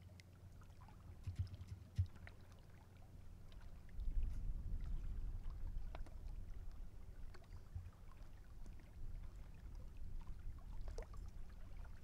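Small waves lapping on open water, under a low rumble of wind on the microphone that grows stronger about four seconds in.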